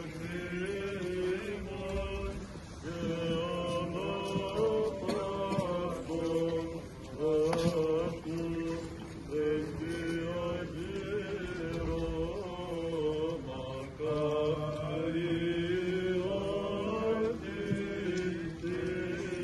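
Greek Orthodox Byzantine chant sung by a group of male monastic voices, an ornamented melody of long gliding notes over a steady low held drone (the ison), as sung at a memorial service.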